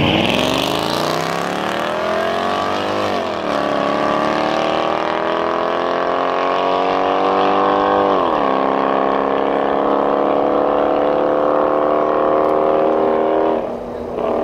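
Mercedes-Benz E55 AMG's decatted supercharged 5.5-litre V8 at full throttle, accelerating hard down a drag strip with a second car alongside. The pitch climbs through the gears, with two upshifts about three and eight seconds in, and the sound drops off near the end.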